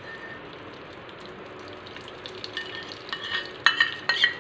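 Ghee melting and sizzling gently in a small nonstick tempering pan on a gas flame, with a spoon clicking against a steel bowl and the pan as more ghee is scooped in. The clicks come more often in the second half.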